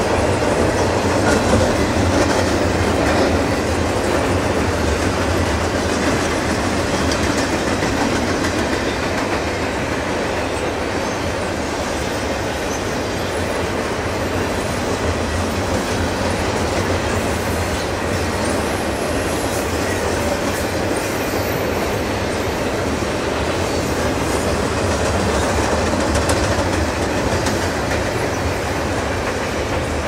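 Double-stack intermodal container train's well cars rolling past: a steady rumble and clatter of steel wheels on the rails.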